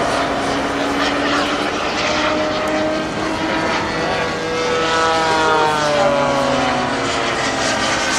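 Radio-controlled scale model A-10 Warthog jet flying past overhead, its engine whine steady at first, then falling in pitch from about five seconds in as it passes.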